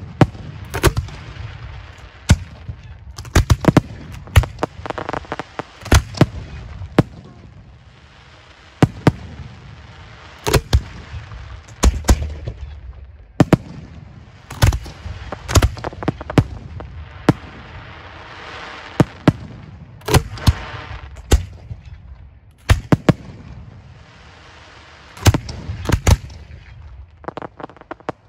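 Professional fireworks display mortars launching aerial shells: dozens of sharp reports at irregular intervals, often several in quick succession, with a rumbling haze of shell bursts and echoes between them.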